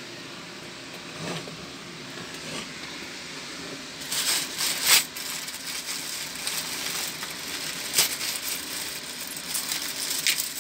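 A few short clicks and rattles from small hard objects being handled: a cluster about four to five seconds in, a sharp one at eight seconds and another near the end, over a steady background hum.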